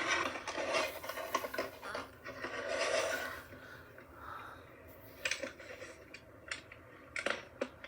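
Small plastic toy figure and accessories being handled. There is rustling and scraping for the first few seconds, then scattered light clicks and taps.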